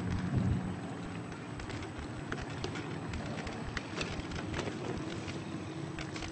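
Log truck's diesel engine running with a steady low drone, with scattered sharp clicks and crackles throughout.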